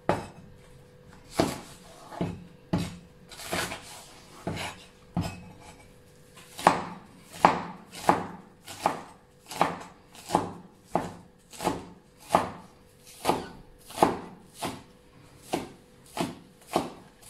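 Cleaver chopping a Chinese green onion into small pieces on a wooden cutting board. A few scattered knocks come first, then from about six seconds in a steady chop of about three strokes every two seconds.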